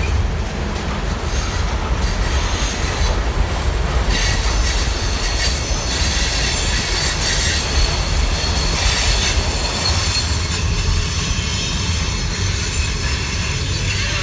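Freight train rolling past with its wheels running on the rails, and a high-pitched squeal of the wheels rising from about four seconds in, over the low rumble of the car's own road noise.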